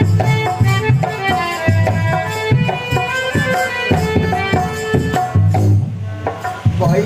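Instrumental folk music: a small round-bodied folk string instrument plays a sustained melody over repeated beats of a hand drum, with no singing.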